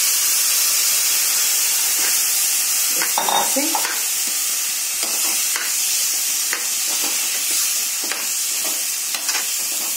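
Boiled chickpeas and their cooking water sizzling in a hot kadhai of fried onion-spice masala, with a metal spatula stirring them and scraping the pan in repeated short strokes from about two seconds in.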